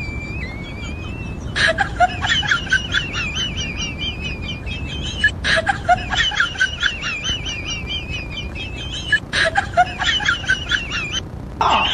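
High, warbling bird-like chirps in phrases about four seconds long, each starting abruptly, like a short sound clip played on a loop.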